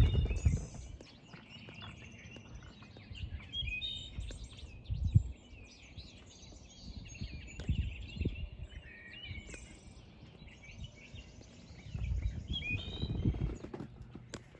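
Outdoor birds chirping here and there, with several low rumbles and bumps from the phone's microphone being moved around on a wobbly selfie stick.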